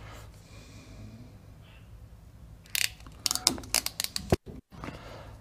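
Ratcheting hand crimping tool clicking through its ratchet as it crimps a ferrule onto a stranded wire: a quick run of sharp clicks about three seconds in, lasting under two seconds.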